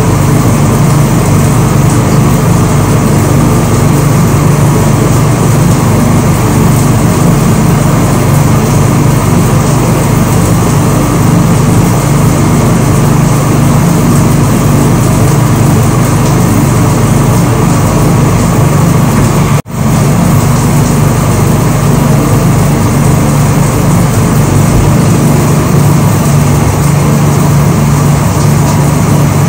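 Loud, steady vehicle noise, an even rumble and hiss that holds without change in pitch. It cuts out for an instant about two-thirds of the way through, then carries on the same.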